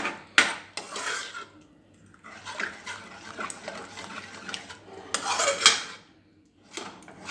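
A metal ladle stirring thick mashed lentils in a metal pressure cooker pan. It scrapes and clinks against the pan's sides and bottom, with a few sharper knocks and a short pause near the end.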